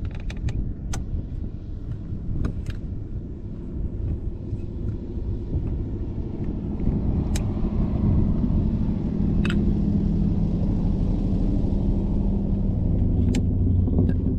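Car engine running, growing louder about halfway through and then holding steady, with low wind rumble on the microphone. A few sharp clicks and knocks sound now and then.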